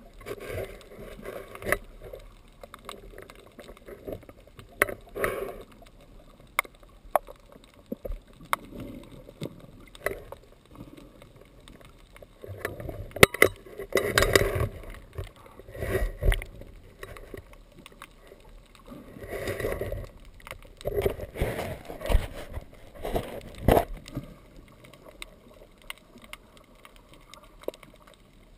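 Sea water lapping and sloshing in irregular surges, with a few sharp clicks and knocks.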